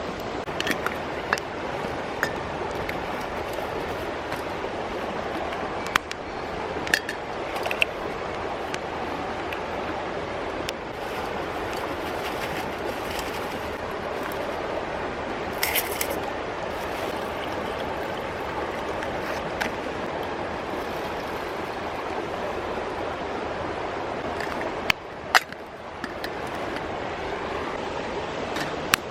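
Mountain stream rushing steadily over rocks. A few short light clicks and clinks sound now and then over it, two of them close together about 25 seconds in.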